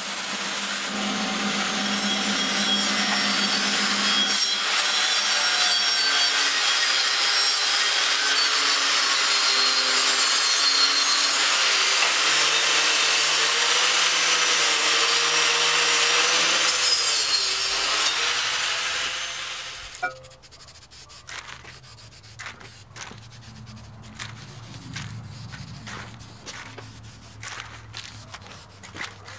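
Angle grinder grinding steel square tubing: a loud, gritty hiss over a motor whine whose pitch wavers as the load changes. It stops about two-thirds of the way through, leaving quieter scattered clicks and taps.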